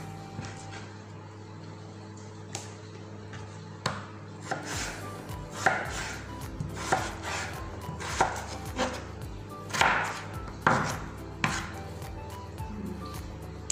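Chef's knife slicing raw potato into strips, the blade knocking on a wooden cutting board about a dozen times at an irregular pace, most of the strokes from about four seconds in.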